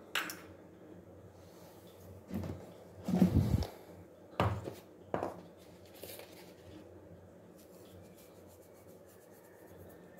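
A handful of short knocks and clunks from kitchen handling, the loudest a cluster a little after three seconds in, with two sharper knocks soon after.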